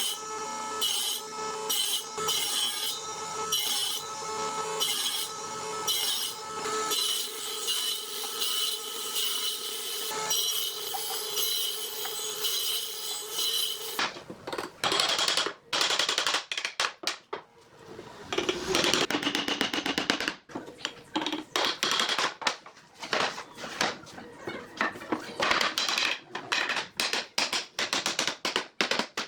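Woodworking tools at work on wood: a steady machine sound pulsing about once a second, then from about halfway a fast run of scraping, rubbing strokes.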